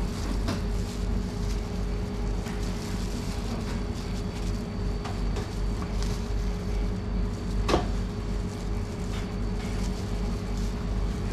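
A steady low hum and rumble of shop machinery with a faint constant tone. Scattered light clicks and knocks come from sandwich making, and the sharpest click falls about two-thirds of the way in.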